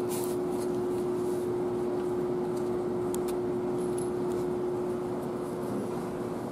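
Steady machine hum in a large workshop, one constant droning tone over a wash of background noise, with a few faint light clicks.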